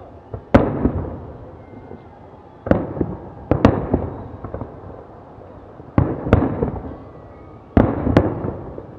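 A fireworks salute with shells bursting in sharp bangs, about seven of them at uneven intervals, some in close pairs, each trailing off in crackle and echo.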